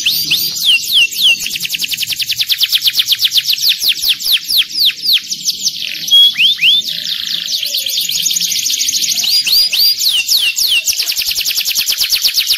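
Domestic canary singing in long fast trills of repeated descending notes. The trills break a few times into slower, louder downward-swept whistles: near the start, about six seconds in and around ten seconds in.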